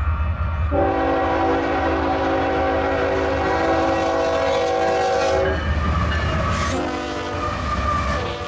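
Union Pacific freight locomotive sounding its air horn, a chord of several notes held together: one long blast of about five seconds, then a second blast starting about a second after it ends. Under the horn is the steady low rumble of the diesel locomotives, whose lead units pass close by near the end.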